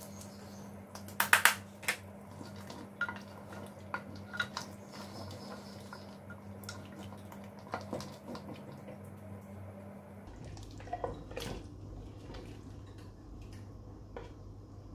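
A spoon clinking and scraping in a cooking pot of simmering mutton gravy, with small bubbling and dripping sounds. A quick cluster of clinks about a second in is the loudest, with scattered single clinks after. A low steady hum drops away about ten seconds in.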